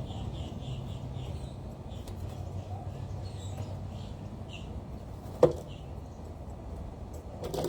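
Small birds chirping faintly over a steady low rumble, with a sharp knock about five and a half seconds in.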